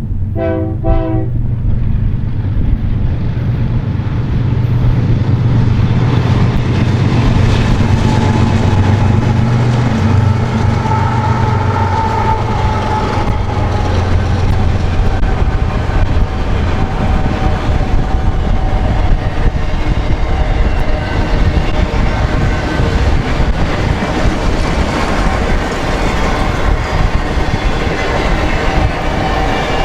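A freight train's diesel locomotive horn gives one short blast near the start, then the locomotives pass with a heavy low rumble that eases after about half way. The autorack cars follow, rolling by with clickety-clack and thin squealing tones from the wheels.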